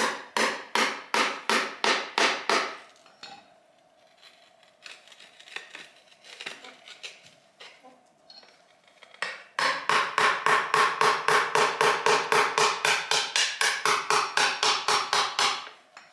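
Hammer striking an old chisel to prise a tile up from its bed: a quick run of sharp metal-on-metal strikes, about four a second, then a stretch of lighter scattered taps, then a longer, louder run of about five strikes a second that stops shortly before the end.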